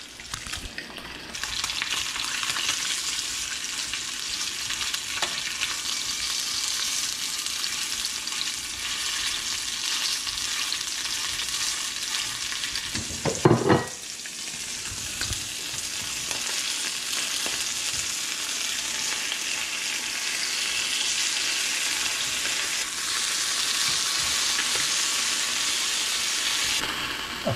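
Yellowfin croaker fillets sizzling steadily in hot olive oil in a frying pan, with one brief louder sound about halfway through.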